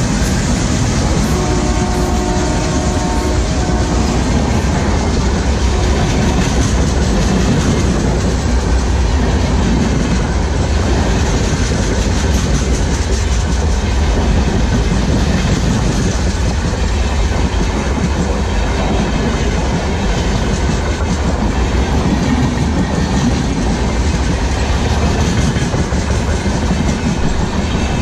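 Passenger train coaches rushing past at speed at close range: a steady, loud rumble and clatter of wheels on the rails.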